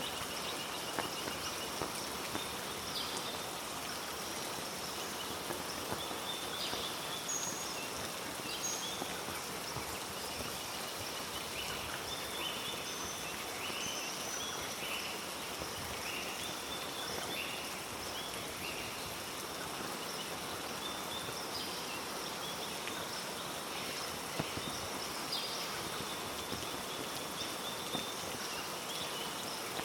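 Steady heavy rain falling through rainforest, with many short, high, repeated chirping calls from small animals and a few sharp ticks.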